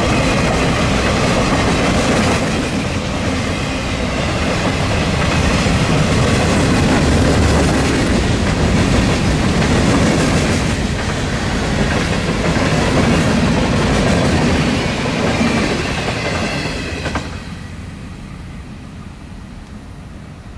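Freight train cars rolling past, wheels clattering over rail joints in a steady rumble; the sound falls away sharply about three-quarters of the way through and fades as the train moves off.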